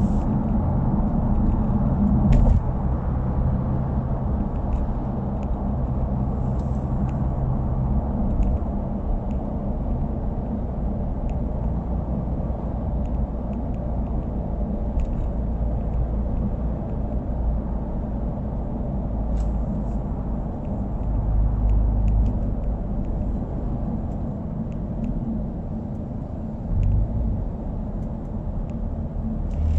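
Subaru WRX's turbocharged flat-four engine and aftermarket exhaust running steadily on the road, a low rumble that swells briefly about two-thirds of the way through and again near the end.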